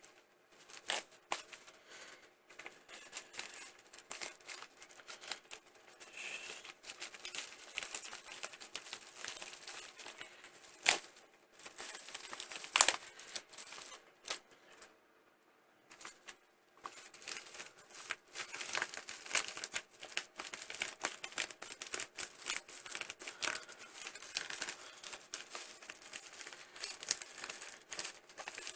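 Mail-order package of trading cards being opened by hand: packaging crinkling and tearing in irregular crackles, with a couple of sharp snaps, stopping briefly about halfway.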